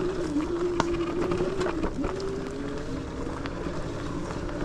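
Lectric XPeak 2.0 electric bike's hub motor whining under load on a climb; the whine wavers, dips about two seconds in, then rises again. Scattered clicks and rattles from the bike and its tyres on the dirt trail run beneath it.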